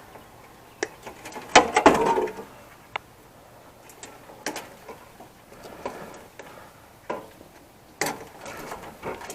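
Hand work on small electronic parts: scattered clicks and snips of wire cutters and small metal and plastic pieces being handled, with busier clusters about two seconds in and again near the end.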